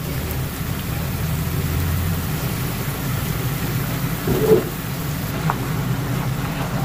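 Sauce of sake, mirin, soy sauce and gochujang bubbling and sizzling steadily in a frying pan around chicken thighs as it reduces to a sticky glaze. A short knock about four and a half seconds in.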